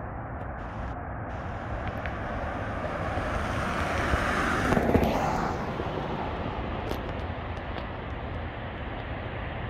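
A vehicle passing close by: a rushing noise swells to a peak about five seconds in, dropping in pitch as it goes past, then fades back to a steady low rumble.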